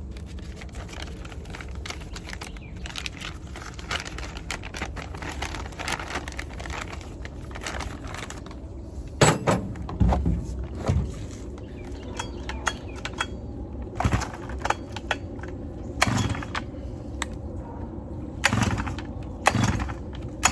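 Rustling and handling sounds, then from about nine seconds in a string of sharp clacks as the Farmertech G888 chainsaw's recoil starter cord is pulled to test the new handle and snaps back against the housing.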